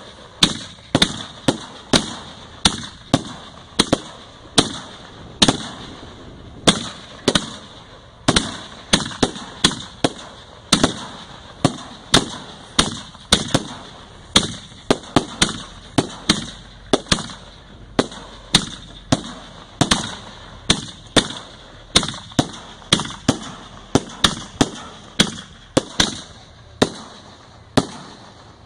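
Display fireworks firing in a rapid, steady barrage: sharp bangs about two to three a second, each trailing off briefly.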